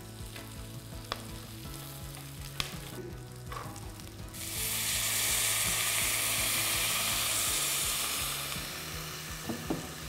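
Shallots and curry leaves frying gently in ghee, stirred with a silicone spatula that gives a few light clicks against the pot. About four seconds in, water poured into the hot fat sets off a loud hiss and sizzle that lasts about four seconds, then dies down.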